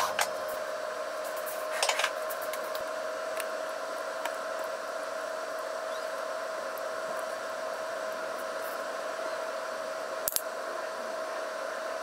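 Steady whir of a kitchen ventilation fan with a constant mid-pitched hum. A few light clicks of wooden chopsticks on the counter and a dish: twice at the start, once about two seconds in, and once near the end.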